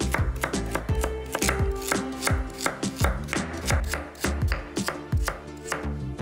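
Kitchen knife chopping food on a cutting board: a quick, even run of strokes, about three or four a second, over soft background music.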